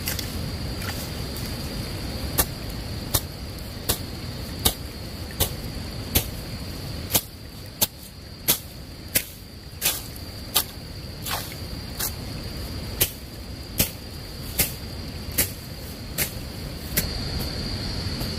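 A steady run of sharp knocks, roughly one every three-quarters of a second and about twenty in all, like repeated tool strikes, over a constant thin high-pitched whine.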